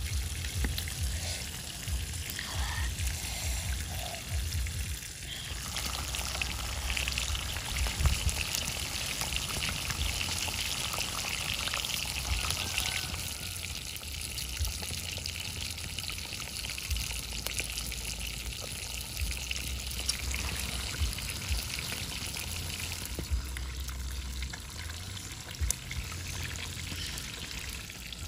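Fish sizzling on a hot rock over a wood fire: a steady hiss with the fire crackling in many small pops.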